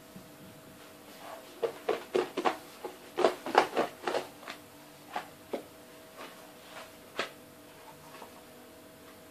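Hands working a sheet of buttered, oily dough, stretching it out by the edges: a run of quick sticky smacks and clicks that bunch up about two to four seconds in, then a few scattered ones, over a faint steady hum.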